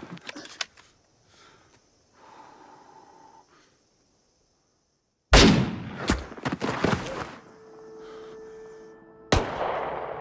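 Two rifle shots: a sudden loud crack about five seconds in that rings off for a couple of seconds, and a second loud crack near the end. Before them, scuffling footsteps in loose dirt, then a short quiet stretch.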